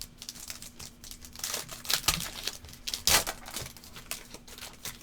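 A trading card pack's wrapper crinkling and tearing as the pack is opened and handled. It comes in several rustling bursts, the loudest about two and three seconds in.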